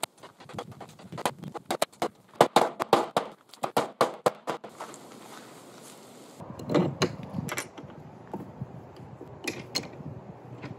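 A rapid, irregular run of sharp clicks and knocks from hand work on a slatted wooden frame, stopping about five seconds in. After a short lull come a few duller knocks as plywood boat modules are handled, over a low rumble.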